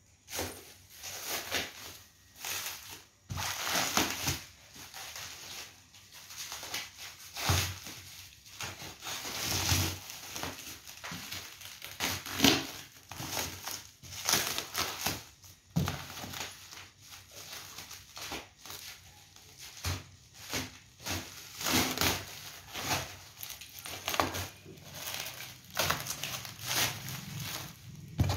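Clear plastic stretch wrap around a cardboard box crinkling and tearing as it is cut open and pulled off by hand, in irregular rustling bursts.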